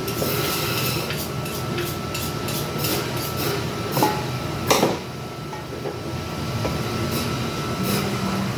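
Two sharp knocks of a knife against a cutting board about halfway through, with lighter clicks around them, over a steady rumbling hum with a thin whine.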